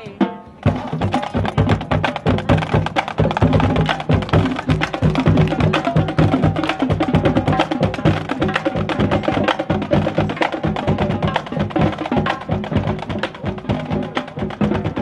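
Marching band drumline playing a marching cadence: snare drums with tuned bass drums in a busy steady beat, starting about half a second in.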